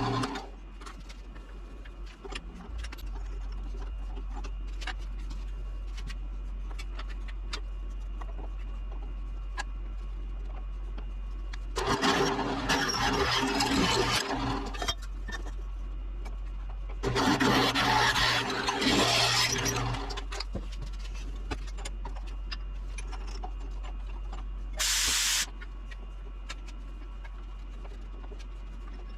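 Metalworking shop tools at work on steel: a steady low machine hum, broken by two loud, noisy stretches of cutting or grinding about three seconds each, and a brief hiss that starts and stops sharply near the end.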